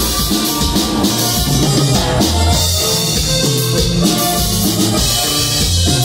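Loud amplified dance music with a steady drum beat and a moving bass line.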